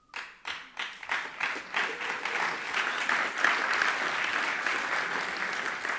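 Audience applause: a few scattered claps in the first second quickly fill in to steady, sustained clapping.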